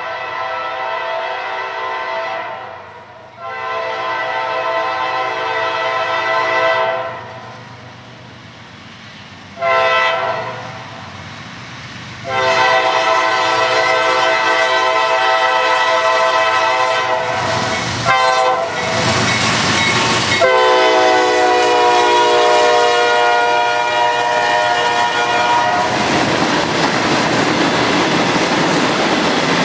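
A CSX freight locomotive's air horn sounding the grade-crossing signal: two long blasts, a short one, then a long one, its pitch dropping as the locomotive passes. Near the end the horn gives way to the steady noise of freight cars rolling past on the rails.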